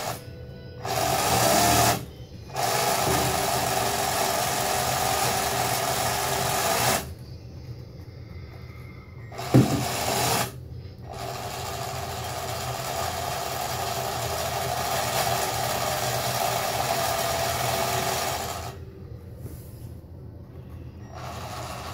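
The small electric propulsion motors of a radio-controlled 1/144 scale destroyer model whining steadily as they drive the propellers. They are switched on and off by the throttle: a short burst about a second in, a run of about four seconds, a pause with a single knock, then a longer run of about seven seconds that stops near the end.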